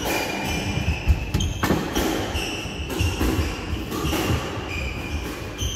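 Squash rally: the ball cracks off the rackets and smacks into the court walls and floor every half-second to a second. Short high squeaks, typical of court shoes on the wooden floor, come between the hits.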